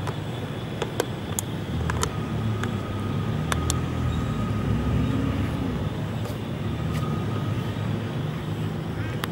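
Low rumble of a motor vehicle's engine, swelling in the middle as it passes and then easing off. A few sharp clicks in the first few seconds.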